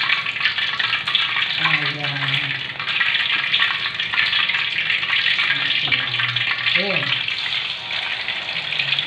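Hot cooking oil sizzling and crackling steadily in a wok as curry leaves and spice-marinated chicken pieces deep-fry.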